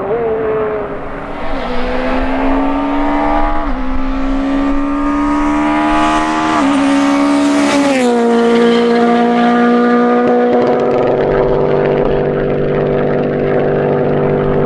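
Peugeot 208 rally car driven flat out past the camera. Its engine note climbs through the gears, dipping briefly at each upshift. About eight seconds in the pitch slides down sharply as the car goes by, then holds a steady note as it pulls away.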